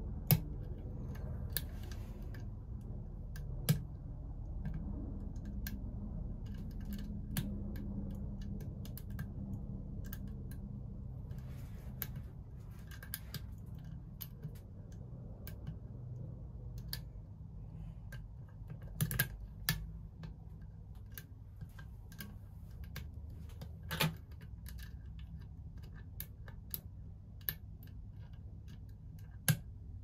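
Lock pick and tension wrench working the pins of a 40 mm Master Lock brass padlock: light metallic clicks and brief scrapes at irregular intervals, a few sharper than the rest, over a steady low hum.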